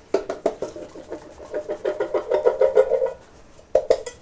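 Drained chickpeas rattling out of a tin can shaken and tapped over a wok, with the can giving a hollow ring. The rapid rattle lasts about three seconds, and a shorter burst follows near the end.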